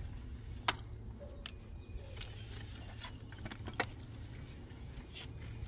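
Scattered light clicks and knocks, about one a second, from a string of PVC well pipe and its steel clamp and bars as the pipe is eased down the borehole, over a low steady hum.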